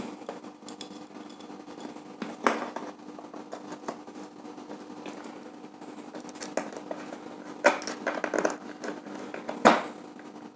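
Small screwdriver working a terminal screw on a plastic two-way switch, with scattered clicks and scratches as the wire and switch are handled. A sharper click comes about two and a half seconds in and two more near the end, over a faint steady hum.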